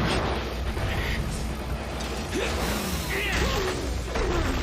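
Sound effects from an anime fight scene: a chainsaw's mechanical whirring and grinding over a steady low drone, with background music.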